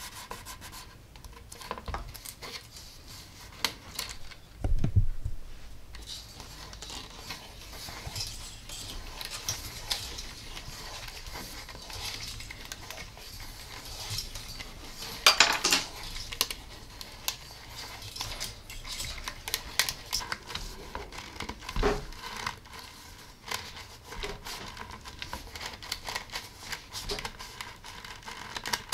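Hands winding thin insulated solid wire around a plastic pipe to form a coil: rustling and light clicking of the wire and tape, with a few louder knocks of the pipe and a sharp crackle about halfway through.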